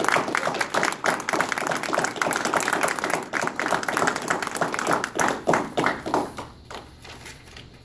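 A group of people applauding, the clapping thinning to a few last separate claps and dying away about six to seven seconds in.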